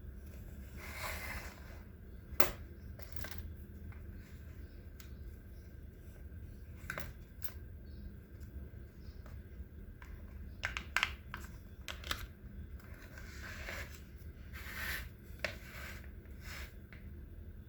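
Leather and small hand tools being handled in leatherwork: scattered sharp clicks and taps and a few short rustling swishes, over a low steady hum.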